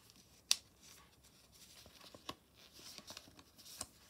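A stack of Panini paper stickers being thumbed through by hand, each sticker slid off the next. There is a sharp paper snap about half a second in, then softer clicks and rustling.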